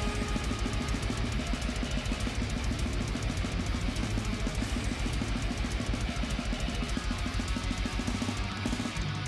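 Heavy metal background music: fast, driving drum-kit playing with bass drum under guitar. The drums thin out briefly near the end.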